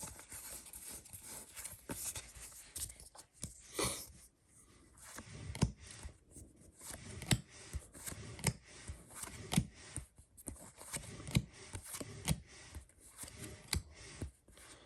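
A Pokémon TCG booster pack being opened and handled: its foil wrapper crinkles and tears, then cards slide and snap as they are flipped through, a steady run of short crackles and sharp clicks.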